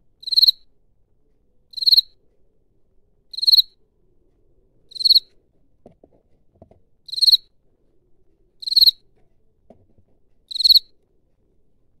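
Field cricket chirping by rubbing its wings together: seven short, high chirps, each a quick run of pulses, repeated about every one and a half to two seconds.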